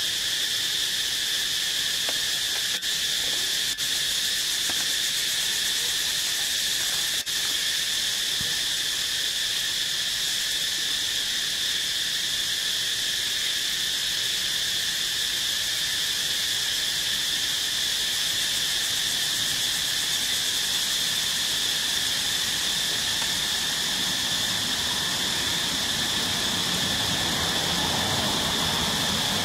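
Steady forest insect chorus: a continuous high whine with a fainter, lower band beneath it. A low rushing noise builds in near the end.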